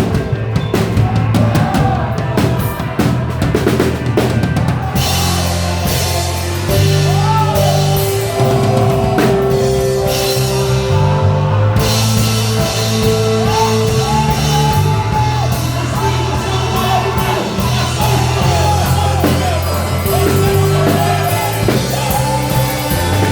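Live church band music: drum kit and electric bass playing under sustained chords, with a wavering melody line on top. The cymbals drop out about five seconds in and come back near the twelve-second mark.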